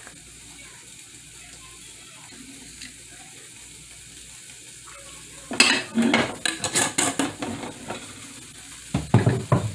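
A steady hiss from a stainless pot of water heating on an electric coil burner set to high. About five and a half seconds in, a spoon clinks and scrapes against the pot for about two seconds as sugar is stirred into the water, and a dull knock follows near the end.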